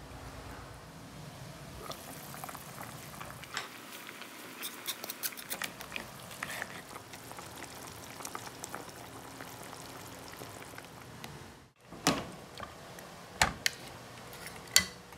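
Pot of chicken-and-mussel soup simmering, with a steady bubbling hiss and many small crackling pops through the first half. A few sharp knocks come near the end.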